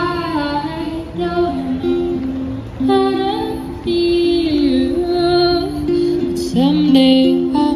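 A woman busker singing into a microphone through a small street amplifier and accompanying herself on acoustic guitar, with long held, gliding sung notes over the strummed and plucked chords.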